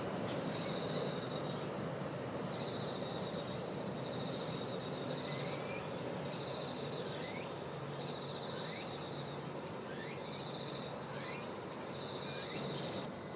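Distant Shinkansen high-speed train on an elevated viaduct as a steady low rushing that eases slightly. An insect trills in a fast pulsing rhythm throughout, and birds give about half a dozen short rising chirps in the second half.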